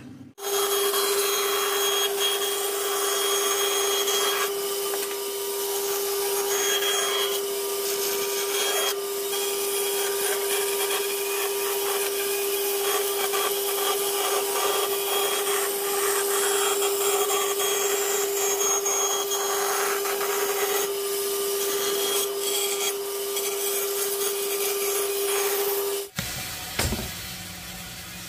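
Electric woodworking power tool running steadily while cutting wood: a constant motor hum with the hiss of the cut over it. It stops abruptly about 26 seconds in, and a short knock follows.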